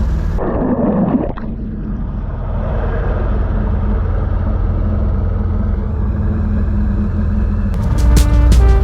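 Airboat engine and propeller running steadily, with a brief swelling rush about a second in. Near the end, music with a beat comes in.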